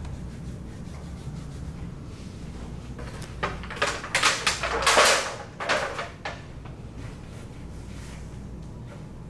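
Disposable aluminium foil tray crinkling and scraping on a wooden tabletop for about three seconds while a ball of dough is lifted out of it, over a steady low room hum.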